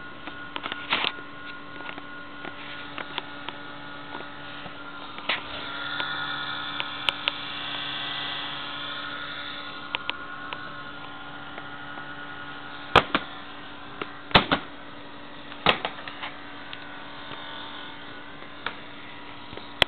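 Toshiba laptop making a weird electrical hum with several higher whining tones over it. The tones waver and swell for a few seconds early on, and a few sharp clicks come near the middle-to-late part.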